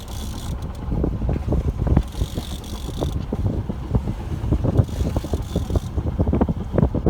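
Wind buffeting the microphone on a sailboat under way, a ragged low rumble with many irregular knocks, and three stretches of hiss lasting about a second each.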